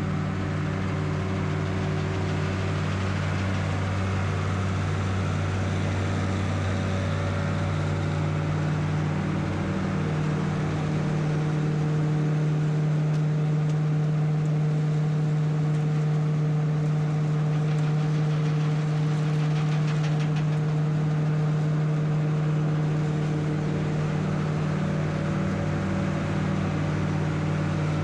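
New Holland SB60 Braud grape harvester working the vine rows, its engine running steadily. About ten seconds in the engine note shifts up and gets a little louder.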